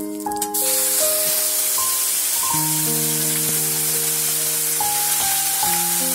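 Hot oil sizzling steadily in a wok with whole spices and bay leaves; the sizzle comes in suddenly about half a second in. Background music with sustained notes plays over it.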